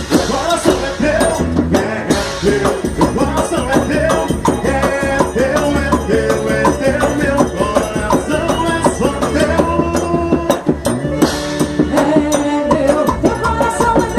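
Quadrilha dance music playing steadily: a melody over a busy, even rhythm of shaken percussion.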